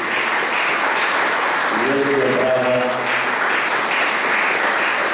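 An audience applauding steadily, with a voice rising over the clapping about two seconds in.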